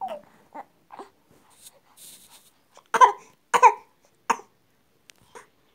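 An infant making short vocal sounds: a few soft ones in the first second, then three louder, brief ones between about three and four and a half seconds in.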